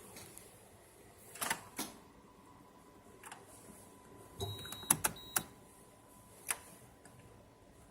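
Faint scattered clicks in a vehicle before its engine is started, with two short high electronic beeps about five seconds in over a faint steady tone.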